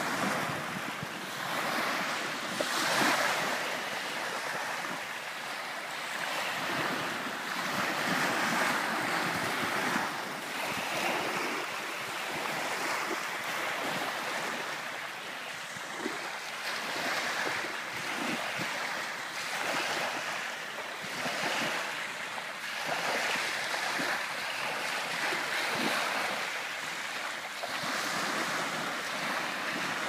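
Small sea waves breaking at the shoreline and washing up over sand, the surf swelling and fading every few seconds.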